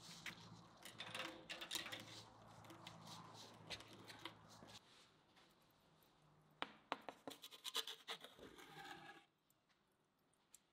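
Scattered scratches and clicks over a low hum. Then, about seven to nine seconds in, a quick run of scrapes and clicks as a peel slides a kutab onto the stone floor of a wood-fired oven and is drawn back.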